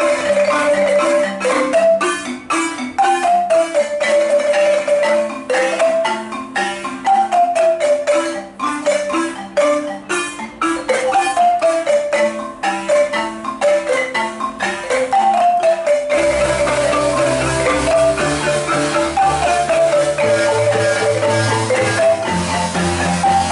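A marimba ensemble of wooden Zimbabwean-style marimbas playing an interlocking tune with a repeating falling melodic figure. Deep bass marimba notes come in about two-thirds of the way through.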